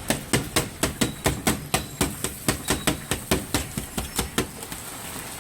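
Metal spatula striking the iron griddle in quick, even knocks, about four a second, as fried rice is chopped and tossed on the teppanyaki plate. The knocking stops about four and a half seconds in, leaving a steady hiss.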